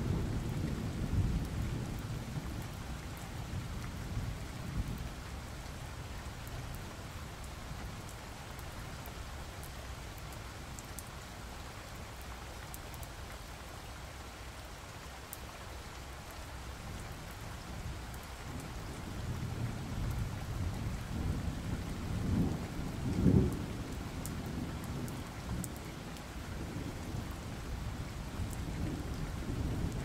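Steady rain with low rolls of thunder; the loudest rumble swells about three-quarters of the way through, and another begins right at the end.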